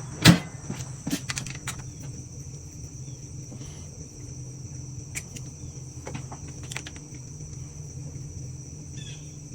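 Scattered metallic clicks and knocks of hand tools and small parts as the power valve cover is taken off a Yamaha YZ125 engine, the loudest just after the start, over a steady high-pitched whine and a low hum.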